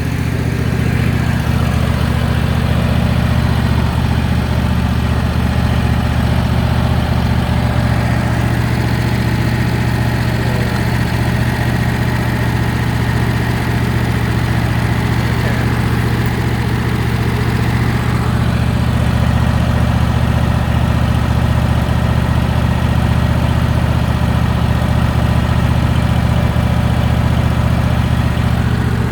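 Portable sawmill's engine running steadily at an even speed, with no revving or change.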